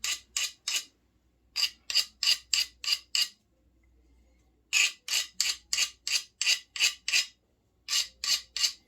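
Hand file rasping across the ends of steel bar stock in quick back-and-forth strokes, about three a second, in several runs with a short pause in between, deburring the cut ends.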